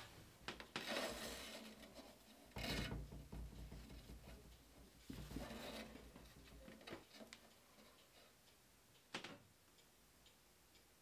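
Faint handling noises: soft rustling bursts and light knocks as hands work at the front of a dryer, fixing a metal sign and tying ribbon onto it, with one sharp click a little after nine seconds.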